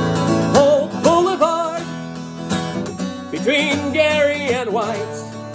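Steel-string acoustic guitar strummed in steady chords, with a man singing over it in two phrases, the second with held, wavering notes.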